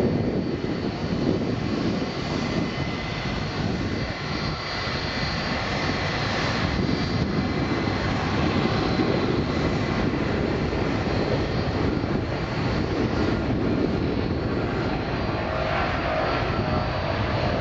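Jet engines of a Boeing 777-300 airliner running as it rolls along the runway: a steady, dense rumble with a thin high whine over it.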